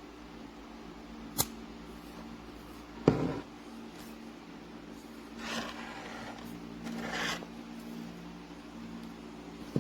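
Small objects being handled on a desk: a sharp click, a louder knock, two short scraping rubs and another click, over a steady low hum.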